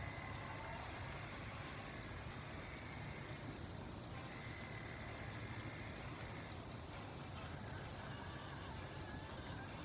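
Steady hiss of rain falling, with a low hum underneath.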